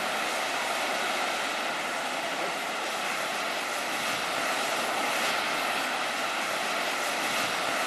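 The Bocca Grande fumarole at the Solfatara volcanic crater venting sulfurous gas and steam with a steady hiss.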